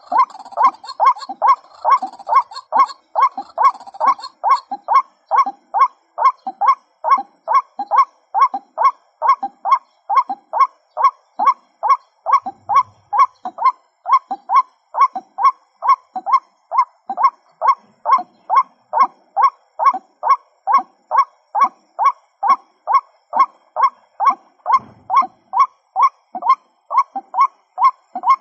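Female white-breasted waterhen calling: a monotonous, evenly repeated series of 'kwak' notes, about two a second.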